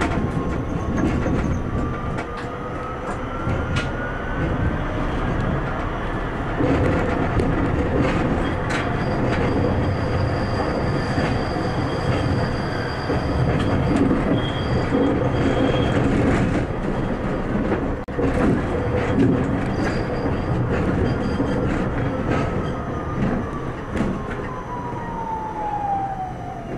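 Tram running on street track, heard from the driver's cab: a motor whine that rises in pitch as the tram pulls away, a running rumble with scattered clicks from the rails, and a thin high wheel squeal midway. Near the end the whine falls steeply as the tram brakes into a stop.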